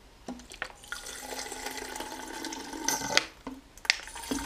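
Water pouring from a plastic bottle into an Isostar plastic sports water bottle, filling it, with a brief break about three seconds in and a few light clicks of plastic.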